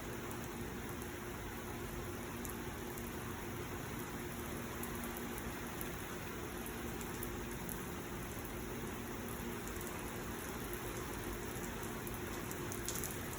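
Heavy rain pouring down in a steady, dense downpour, with a faint low hum under it.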